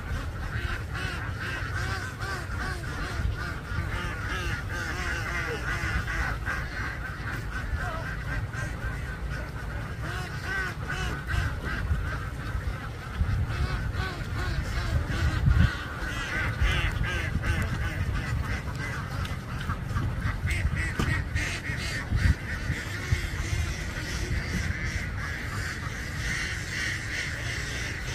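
A large flock of domestic ducks quacking together: a dense, unbroken chatter of many overlapping calls. A low rumble runs underneath, with brief louder bumps about halfway through and again later on.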